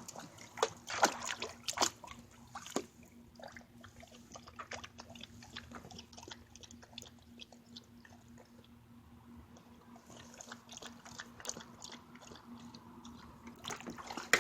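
A dog lapping water from its pool: a quick, irregular run of small wet laps and splashes, with the loudest ones in the first few seconds.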